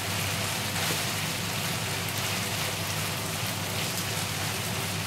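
Ground pork and onions sizzling steadily in a nonstick frying pan, frying in the water the meat releases, as a wooden spatula stirs through them.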